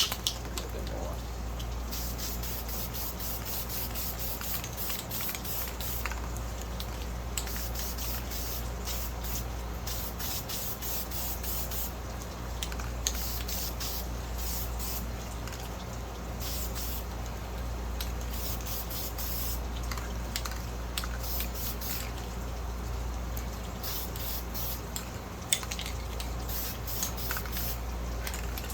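Air-filter oil being sprayed onto the filter's outer cover in many short hissing bursts, in clusters, over a steady low hum.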